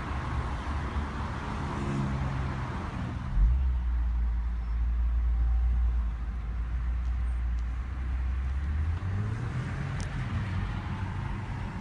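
A car driving, heard from inside the cabin: a steady low road-and-engine rumble starts suddenly about three seconds in. Near the end the engine note rises as the car speeds up.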